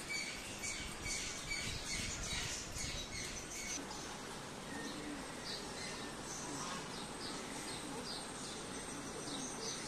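Several birds chirping and squawking in quick, short high calls over steady outdoor background noise.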